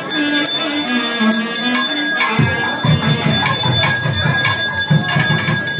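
Traditional Indian music: fast, even jingling percussion strokes over a held high tone, with a low stepping melody at first and drum beats coming in about two seconds in.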